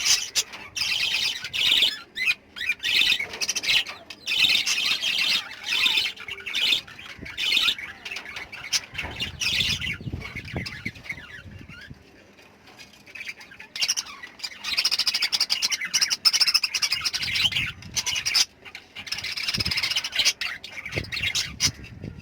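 Pet lovebirds chattering with shrill, rapid squawks. The calling eases off for a few seconds midway and then picks up again.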